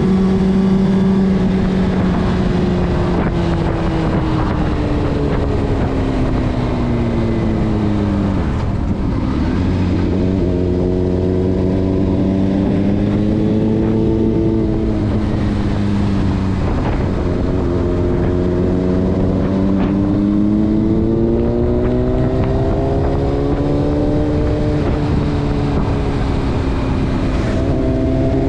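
Honda CBR600RR's inline-four engine running continuously, its pitch sinking as the revs drop about eight seconds in, then climbing and easing off again in stages with several sudden steps in pitch, as when the throttle is opened and closed and gears change.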